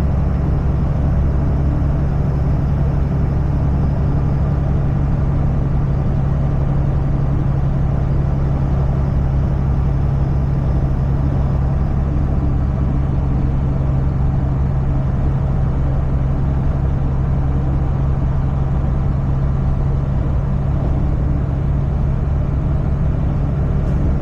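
Semi truck engine running steadily while driving, a constant low drone with road noise and no change in pitch.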